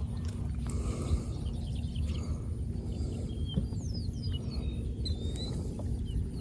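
Birds chirping in short, gliding calls over a steady low rumble.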